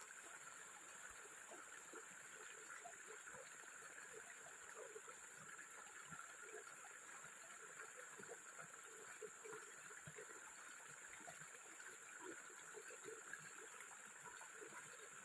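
Faint water trickling and gurgling, with a steady high hiss behind it.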